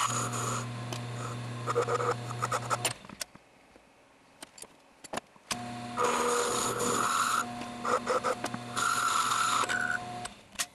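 Taig micro lathe running with a steady motor hum while a cutting tool feeds into a spinning brass rod, giving bursts of rough scraping. The sound drops out for a few seconds after about 3 s and comes back about 6 s in.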